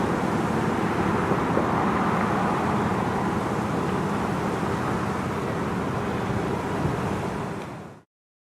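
Steady outdoor background noise with a low hum, fading out near the end.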